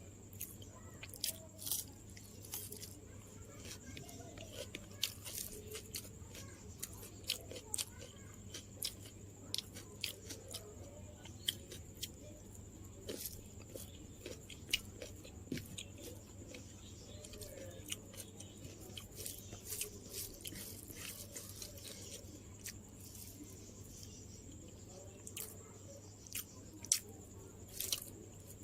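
A person chewing crunchy food close to the microphone, with frequent sharp, irregular crunches and mouth clicks, several louder ones near the end.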